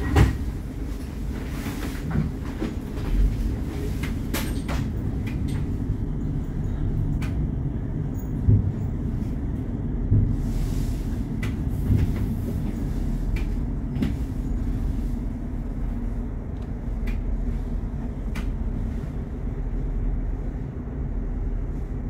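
Interior of a light-rail car standing at a stop: a steady low rumble from the car's running equipment, with a loud thud right at the start and scattered clicks and knocks.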